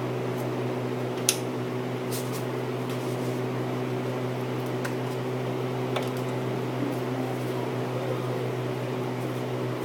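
Steady low mechanical hum with several steady pitched tones, like a running fan or motor, with a few light clicks and taps.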